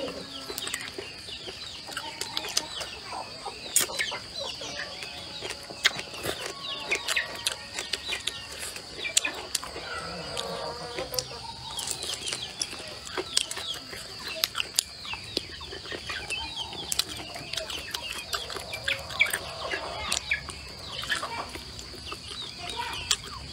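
Close-up chewing and mouth sounds of someone eating braised pig's trotter and chillies, with many small clicks from bites and chopsticks. Chickens cluck in the background, and a steady high-pitched drone runs underneath.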